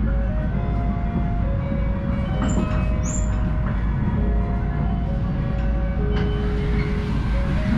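A slow electronic chime melody of clear, held notes over the train's public-address system, playing over the steady low rumble of the Komachi Shinkansen train running on the line.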